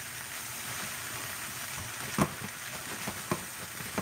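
Okra, broccoli, saltfish and shrimp sizzling as they stir-fry in a nonstick frying pan. A spatula knocks against the pan three times in the second half as the food is stirred.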